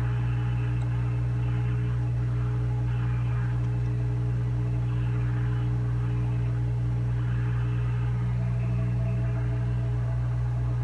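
Hot-air rework station blowing steadily through its nozzle: a constant whir of air over a strong low hum. It is heating a logic-board chip to melt its solder so the chip can be lifted off.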